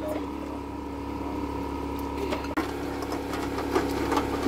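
A steady motor hum, with a few clinks and knocks of metal pots and bowls being handled, the clearest about two and a half seconds in.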